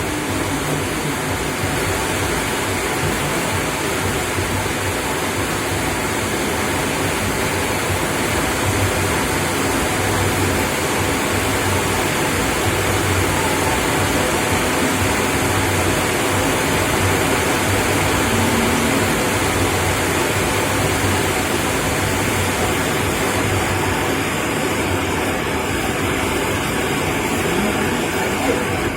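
Heavy rain pouring steadily onto ornamental garden plants, a dense, even hiss.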